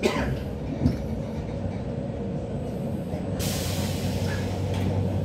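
RER B electric commuter train pulling in and stopping, with rolling rumble, a clank at the start and a knock about a second in. About three and a half seconds in comes a hiss of compressed air lasting over a second, then the halted train sits with a steady low hum.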